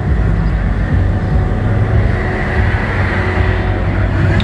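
Mercedes-AMG GT's twin-turbo V8 engine running at low revs as the car rolls slowly past.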